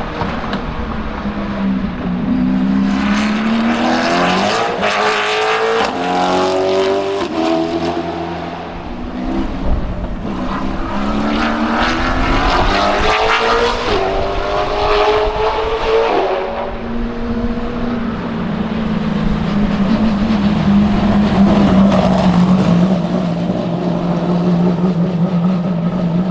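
Lotus Elise GT1's 5.7-litre Corvette V8 race engine accelerating hard through the gears twice, its pitch climbing between each upshift. Then it holds one steady low note for the last several seconds as the car runs slowly at a constant speed.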